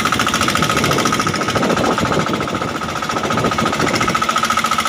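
A small engine runs steadily with a fast, even chugging beat. Over it, water splashes as fish are shaken out of a net into the boat's hold.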